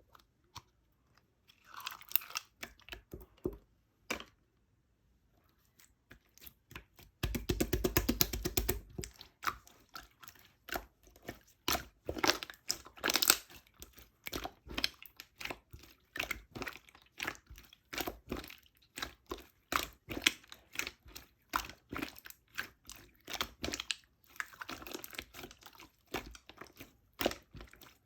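Close-up crunching and crackling in a small room: a few scattered cracks at first, then dense, irregular cracking from about seven seconds in.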